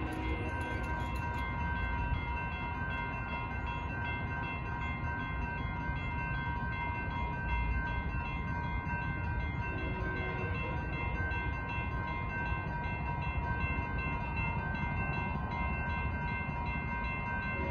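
Railroad grade-crossing warning bells ringing steadily while the crossing is activated and its gates are down, with a constant low rumble underneath.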